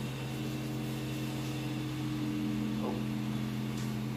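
Handheld corded electric massage device running with a steady, even hum while pressed against the body.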